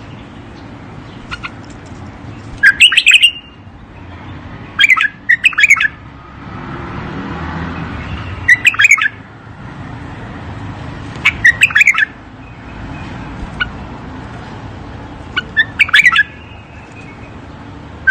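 Bulbul singing: short, bright phrases of quick notes, about five in all, repeated every few seconds over a steady low background noise.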